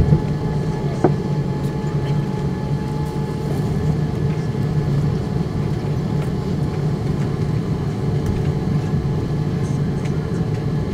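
Steady cabin noise of a Boeing 787-9 taxiing, heard from a window seat beside the wing: the low, even drone of its Rolls-Royce Trent 1000 engines at idle, with two sharp knocks in the first second or so.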